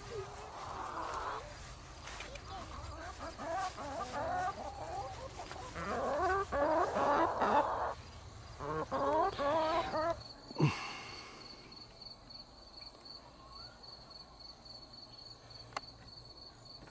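A flock of backyard chickens clucking busily for about the first ten seconds. After a short, loud falling sound about eleven seconds in, crickets chirp in a steady, evenly pulsing rhythm.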